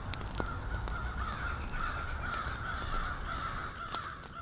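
A harsh, crow-like cawing call, drawn out for about four seconds, with faint crackling clicks under it.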